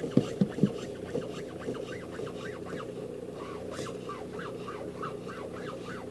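Short squeaks from a VW Golf Mk4's steering, repeating several times a second over a steady low hum, with a few sharp knocks in the first second. The owner suspects the steering rack.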